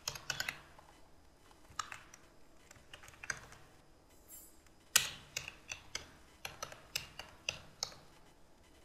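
Computer keyboard being typed on in irregular runs of keystrokes. There is a short pause in the middle, the loudest keystroke comes about five seconds in, and a quick run of keys follows.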